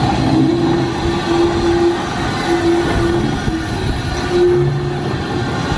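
Saddle-tank steam locomotive Henbury running slowly past, its working noise dense and loud, with a steady tone that sounds on and off several times.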